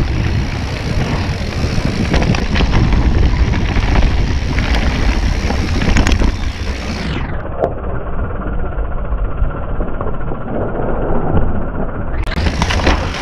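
Wind buffeting an action camera and a mountain bike rattling over a rough dirt trail, with frequent clicks and knocks from the bike. About halfway through the sound turns muffled for roughly five seconds, then clears again.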